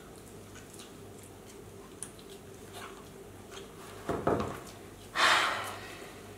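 Quiet room with a faint steady hum and soft handling knocks as a small dog is picked up. A short breathy puff comes just after five seconds in.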